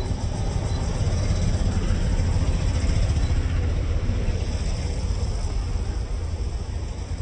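Street traffic on a city road: motorcycles and scooters riding past close by, with a steady low rumble.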